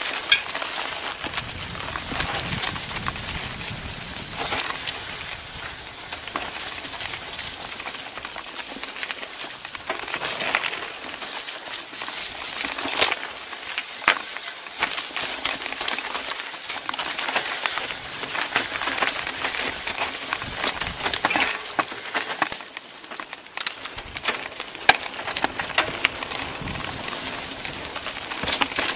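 CTM Ridge Xpert mountain bike rolling fast down a dirt forest trail. The tyres hiss and crunch over dirt and leaves, with frequent sharp clicks and knocks from the bike as it bumps over roots and stones.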